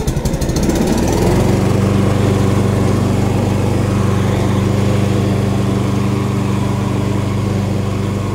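Lawn Boy mower's 149cc Kohler single-cylinder engine just after catching on its electric start: it comes up to speed within the first second, then runs steadily at full speed.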